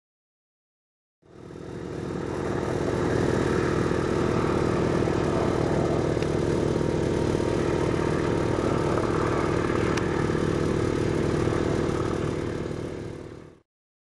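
Sheriff's rescue helicopter flying by, its rotor and turbine engines running steadily. The sound fades in about a second in and fades out just before the end.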